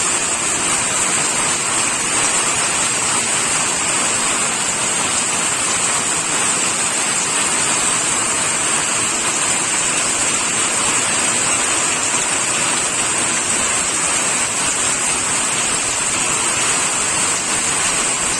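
Steady rain falling, an even, unbroken hiss that is brightest high up, with no separate drops or thunder standing out.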